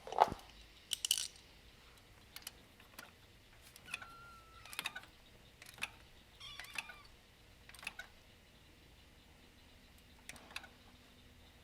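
Scattered metallic clicks and clinks of hand tools and small metal parts being handled on an engine, with a sharp clink at the start the loudest and a brief squeak about four seconds in.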